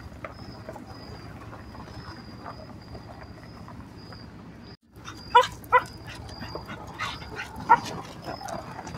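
A dog barking: two sharp barks in quick succession a little past halfway, then another about two seconds later, over a low steady hum.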